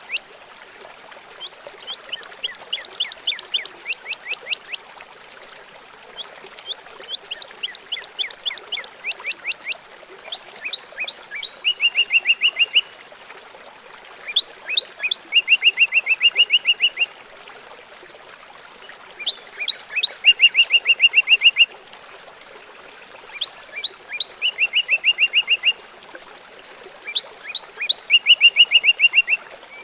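A songbird singing the same phrase over and over, about every four seconds: a quick run of sharp notes ending in a fast, even trill. Under the song runs a steady hiss of trickling water.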